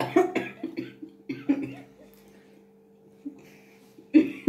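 A woman coughing in fits while eating pani puri: the spiced water has gone down the wrong pipe. A cluster of coughs comes in the first second and a half, and another just before the end.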